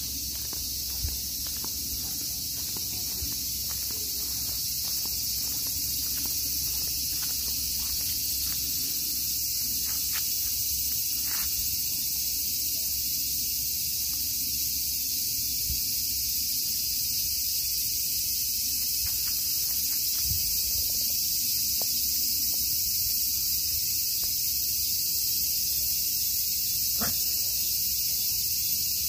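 Steady high-pitched chorus of insects, with scattered faint clicks and taps, most of them in the first half.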